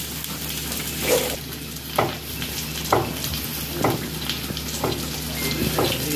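Sliced onions sizzling steadily in hot coconut oil in a clay pot, with a short knock about once a second from a knife cutting a tomato on a cutting board.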